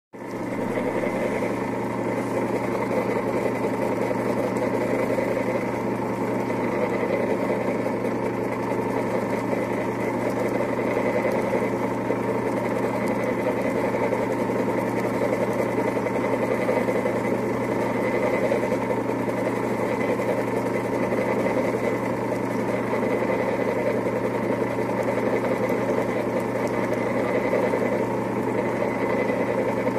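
Electric mochi-making machine running, its motor turning the blade that pounds steamed glutinous rice into a smooth ball of mochi: a steady, unchanging motor hum.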